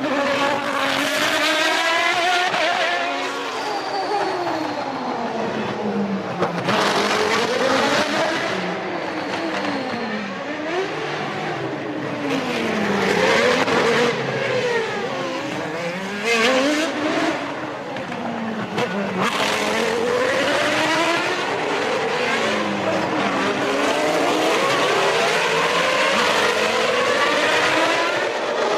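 1993 Formula One cars' naturally aspirated 3.5-litre engines running at high revs. The pitch climbs and falls again and again as the cars accelerate, shift and brake.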